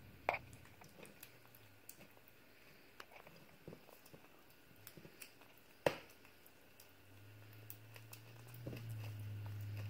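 Kitten eating wet food from a china saucer: faint smacking and chewing with scattered small clicks, and two sharper clicks, one about a third of a second in and one near six seconds. A low steady hum comes in during the last few seconds.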